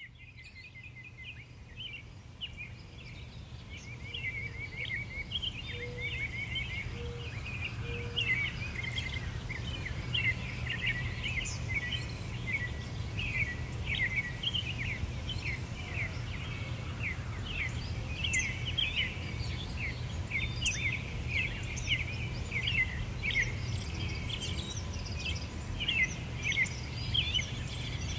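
A chorus of small birds chirping and twittering continuously, fading in over the first several seconds, over a steady low rumble. Three short low notes sound a few seconds in.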